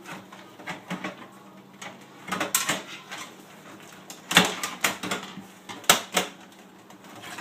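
Scattered clicks, knocks and scrapes as a computer power supply unit is handled and fitted into a desktop PC case, with two sharp knocks about four and a half and six seconds in.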